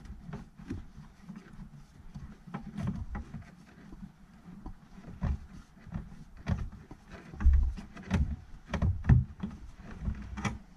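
Hand work inside a car boot's side trim, undoing the large plastic finger nut that holds the rear light cluster: irregular small clicks, rubs and knocks of plastic. A few duller, louder thumps come in the second half.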